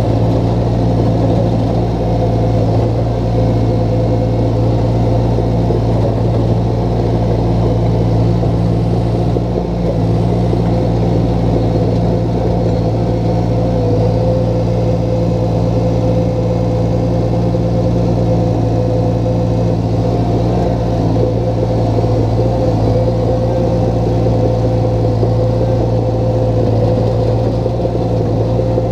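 Crawler dozer's diesel engine running steadily while working, heard from the operator's seat, with a steady whine above its low drone.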